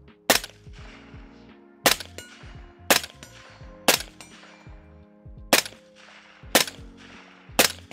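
Seven suppressed rifle shots from a .300 AAC Blackout UTAW Pro AR-15 firing supersonic ammunition through a SilencerCo Omega 300 suppressor, spaced about one to one and a half seconds apart, each with a short echo. Pretty quiet for a supersonic round.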